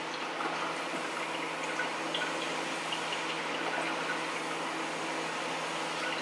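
Liquid egg whites pouring steadily from a carton into a silicone measuring cup.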